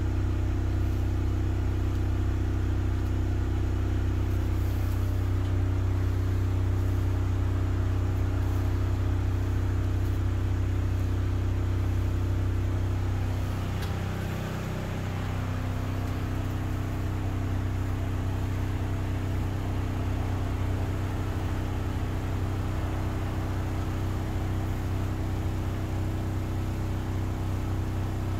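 Food truck's engine idling steadily with a low, even hum. About 14 seconds in its pitch shifts and it drops a little in level, then runs steadily again.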